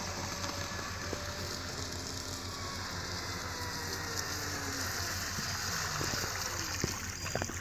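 Small RC speedboat's motor whining faintly as it comes back in, its pitch slowly falling, over a steady rushing hiss of water. A few light knocks near the end.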